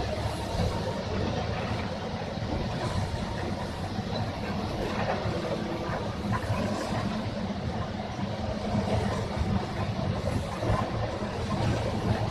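Excavator diesel engine running steadily.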